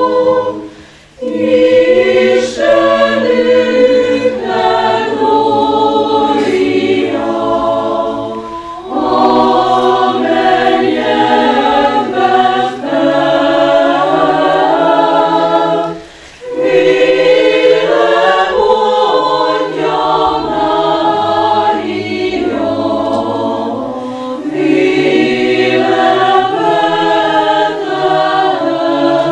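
A choir singing sustained sung phrases, with brief pauses between them about a second in, around nine seconds, around sixteen seconds and around twenty-four seconds.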